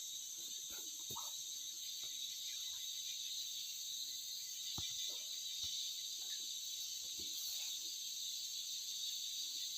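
Steady high-pitched chorus of forest insects, with a few faint scattered ticks and taps.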